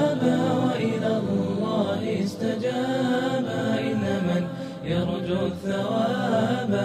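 Arabic nasheed: a voice singing a slow melody in long, wavering held notes.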